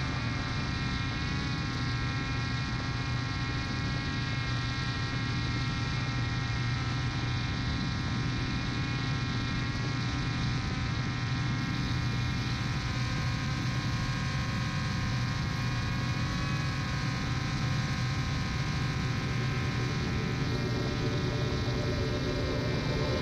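Multirotor drone's electric motors and propellers running steadily in flight, a constant hum with a layered whine above it, heard from the camera on board.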